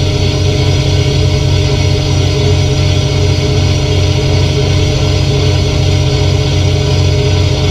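Fishing boat's engine and deck machinery running steadily: a low, evenly pulsing drone with a constant hum above it.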